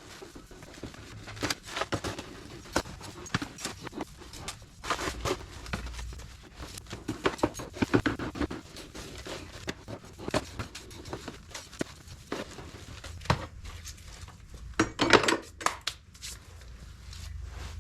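Dry chicken feed and seeds rustling and rattling as they are poured and stirred by hand in a feed tote, with irregular clicks and knocks and a louder burst of scraping late on.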